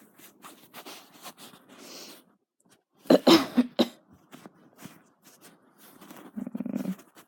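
Coughing: a fit of harsh coughs, loudest in a burst about three seconds in, with weaker coughs and throat sounds around it and again near the end. The speaker puts the coughing down to the heat.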